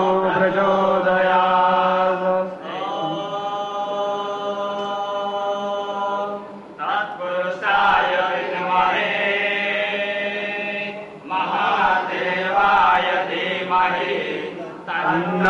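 Sanskrit Vedic mantras chanted in long, held phrases with short breaks between them, over a steady low hum.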